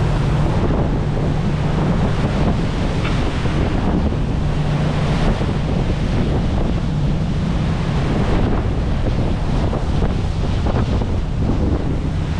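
Pilot boat under way at speed: a steady low engine drone under the rush of churning water between the hulls, with wind buffeting the microphone.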